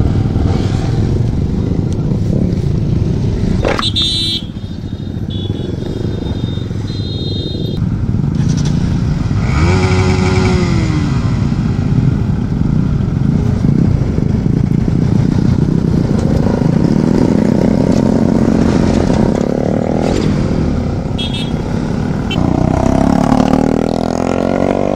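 A line of motorcycles riding past, engines running and revving. One bike passes close about ten seconds in, its engine note rising and then falling. There are short high beeps a few seconds in.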